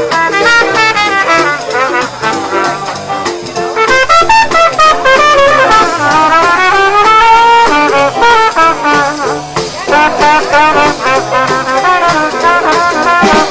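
Pocket trumpet playing a flowing jazz melody, with lower accompanying notes underneath.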